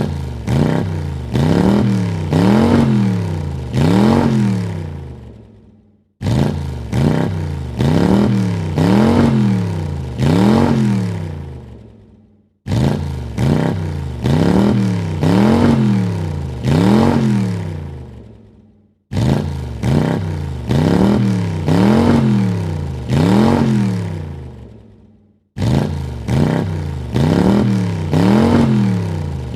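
Car engine revving: three quick blips up and back down, then the sound dies away. The same few-second rev clip repeats about every six seconds, starting abruptly each time.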